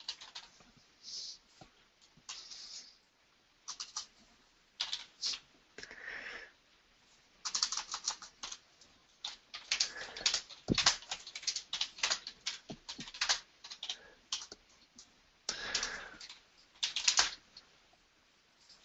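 Typing on a computer keyboard: irregular runs of quick keystrokes, densest through the middle and again near the end.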